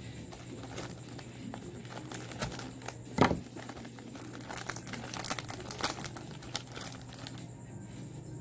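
Plastic cracker-pack wrapper crinkling and tearing as it is opened by hand, with one loud thump about three seconds in.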